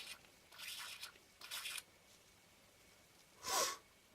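Lens tissue wiping the glass of a camera lens element, three short rubbing strokes. About three and a half seconds in comes a single louder, short breathy noise with a falling pitch.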